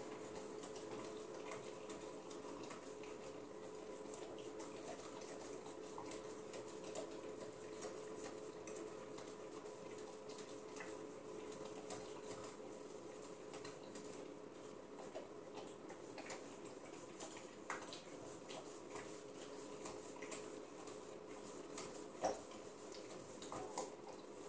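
Saint Bernard licking ice cream from a small hand-held cup: faint, irregular wet lapping and smacking clicks over a steady background hum.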